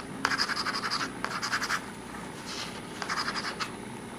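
Medium nib of an AmazonBasics fountain pen scratching across paper in four short scribbles. The nib is still dry: the ink has not yet flowed through after the cartridge was squeezed.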